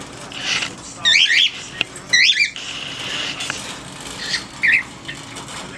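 Pet birds squawking: two loud calls that sweep up and down in pitch, about a second and two seconds in, then two shorter chirps near the end, over steady chatter. The birds are agitated, which their owner puts down to an approaching storm.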